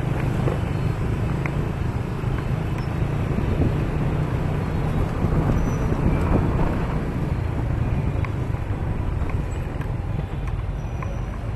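Motorbike engine running steadily while riding along, mixed with wind and road noise on the microphone.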